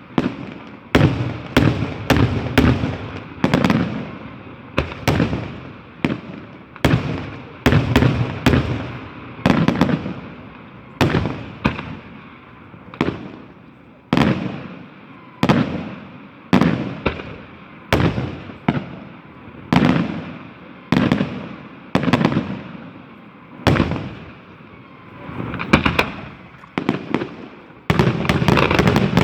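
Aerial fireworks shells bursting in a steady series, about one to two loud bangs a second, each trailing off in a rumbling echo. Near the end the bursts crowd together into a rapid, continuous barrage.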